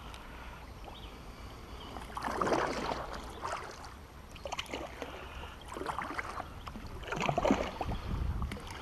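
Kayak paddle strokes in slow river water: the blade dipping and pulling, with splashes and drips about once a second after the first couple of seconds.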